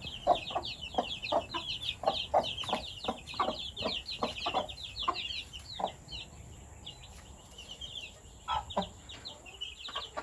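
Young chicks peeping in rapid, high chirps that fall in pitch, with short lower clucks from chickens mixed in. The calling is busy for about six seconds, then thins out.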